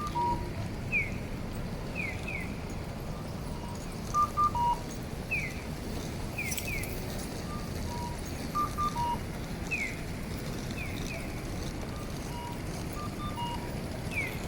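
Japanese pedestrian crossing signals sounding their electronic guidance tones: a two-note cuckoo call, high then low, and quick falling bird-like chirps, repeating about every four and a half seconds over steady street noise.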